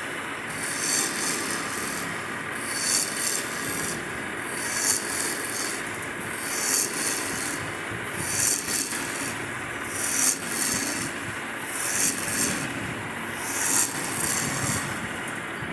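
Rasping or sanding strokes on wood, eight even strokes about two seconds apart, each about a second long, over a steady background hum.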